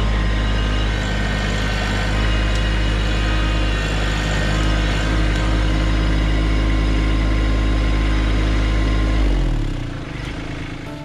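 Kubota LX2610 compact tractor's three-cylinder diesel engine running steadily as the tractor works its front loader. Near the end the engine note slides down and gets quieter.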